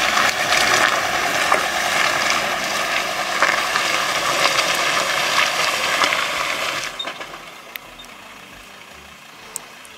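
Ford Ranger pickup clawing up an off-road obstacle in two-wheel drive with the rear differential locked: the rear tyres slip hard, making a dense crunching, clicking noise on dirt and stones. The noise drops to a low hush about seven seconds in, once the truck is up.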